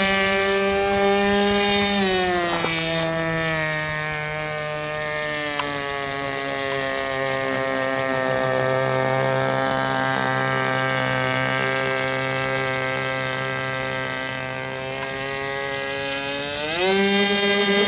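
Radio-controlled airboat's O.S. .25 two-stroke glow engine and propeller running steadily. Its pitch drops about two seconds in and stays lower, then climbs sharply near the end.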